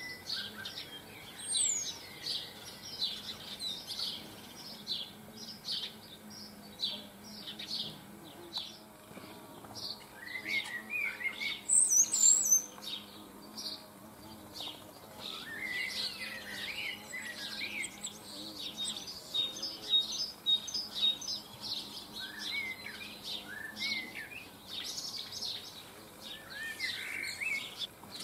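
Small garden birds chirping almost without a break, with a few lower twittering phrases in between. A loud quick run of very high notes comes about twelve seconds in.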